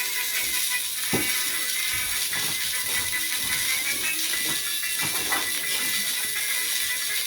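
Steady mechanical clicking rattle in the manner of a film projector, under old-time music, with a constant high hiss.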